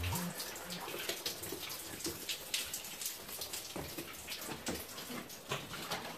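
Footsteps scuffing on a dusty concrete tunnel floor: an irregular run of short clicks and scrapes.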